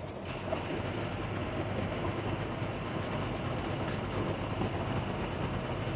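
Moving GSRTC bus: a steady rumble of engine and road noise.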